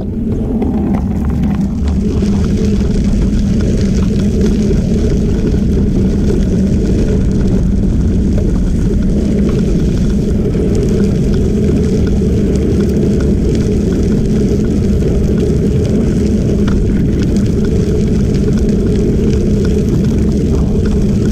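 Steady wind rumble on the microphone mixed with tyre noise from a camera moving along a gravel trail at about 12–14 mph, played back at double speed. It builds up over the first couple of seconds as the speed picks up, then holds steady.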